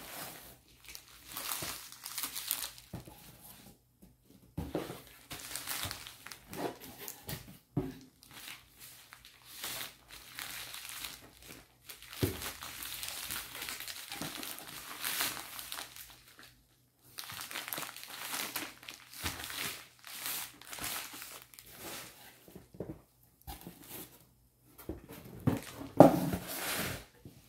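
Plastic parcel wrapping crinkling and rustling in bursts as the parcel is handled and lifted out of a cardboard box. Near the end comes a sharp thump as it is set down on a table.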